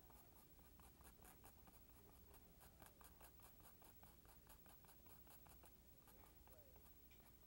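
Faint scratching of a fine-tipped tool on stretched canvas: quick short strokes and dabs, several a second.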